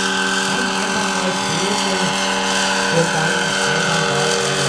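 Electric drive of a 20 kg electric scale model Eurocopter EC 120 helicopter running steadily as it hovers and climbs. It makes a high whine of several steady tones over the rush of the rotor.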